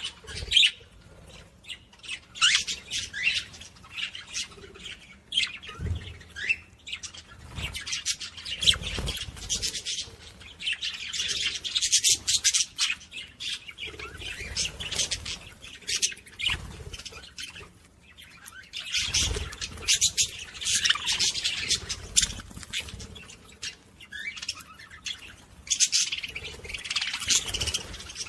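Small ornamental cage birds chirping and squawking, a dense run of short, high calls, with a few low thuds among them.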